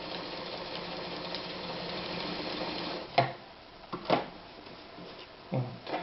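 Anker Phoenix Excelsior ZZ 151 sewing machine, a 1968 model, running steadily while sewing a straight stitch for about three seconds, then stopping. This is followed by two sharp knocks and a softer thump.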